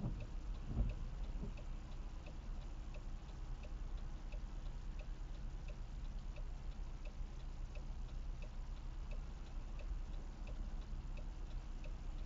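Car turn-signal indicator ticking steadily and evenly over the low hum of the car, with a brief low thump about a second in.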